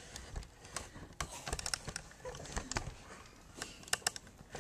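Camera handling noise: irregular light clicks and taps as the camera is moved about and then settled.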